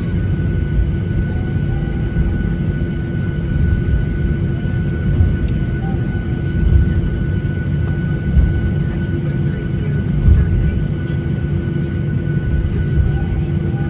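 Jet airliner noise: a steady low rumble with a constant whine, and a few brief low bumps.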